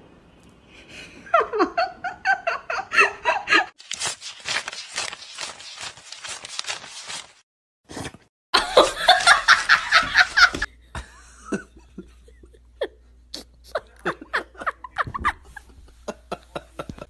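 People laughing in several separate bursts, with short rapid runs of laughs near the end.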